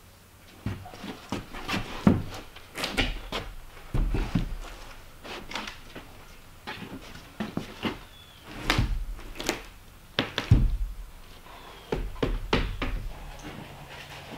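Irregular knocks, thuds and clatter, some heavy and dull, some sharp, spaced unevenly through the whole stretch.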